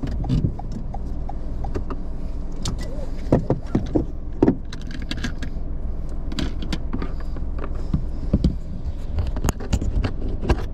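Inside a parked car: a steady low rumble with irregular clicks, knocks and rattles of things being handled in the cabin, thickest near the end.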